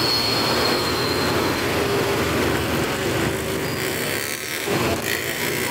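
Steady traffic noise from a jam of trucks, cars and motorcycles running their engines on a wet hill road.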